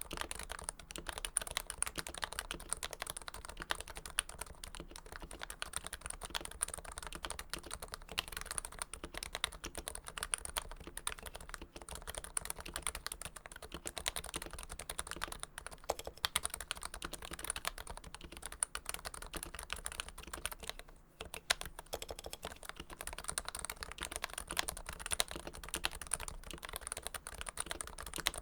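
Fast continuous typing on a Topre electro-capacitive keyboard with Krytox-lubed switches, a dense run of soft muted keystrokes with a brief pause about two-thirds of the way through.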